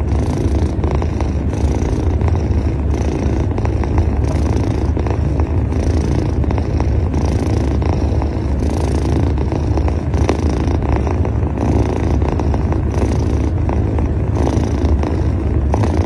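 Ginger kitten purring loudly and steadily, a deep continuous rumble that swells and eases with its breathing a little more than once a second.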